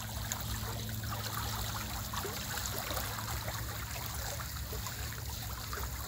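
Water let into a sea-crab pond, flowing in and churning the pond surface with a steady trickling rush. A faint low hum runs underneath.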